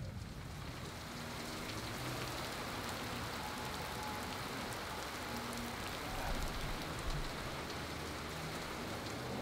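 Steady rain falling, with the fine ticks of individual drops hitting the ground and a wooden sawhorse.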